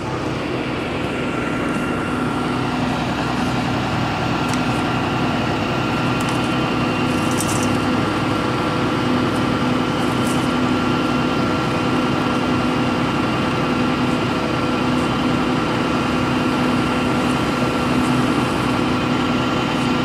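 Tow truck's engine idling steadily, with a couple of faint clicks about seven and ten seconds in.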